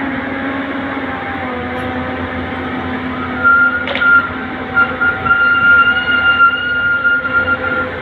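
Engine of heavy earthmoving machinery running steadily, with a high steady whine joining about three and a half seconds in and holding almost to the end, and a single sharp click near four seconds.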